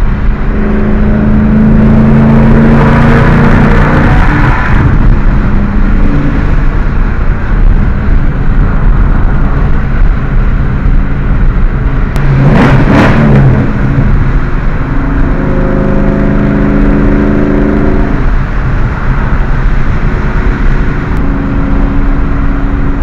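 Ford Mustang GT's V8 and road noise heard from inside the cabin while driving, a steady engine drone that settles at different pitches as the speed changes. About halfway through, a brief whoosh like a vehicle passing close by.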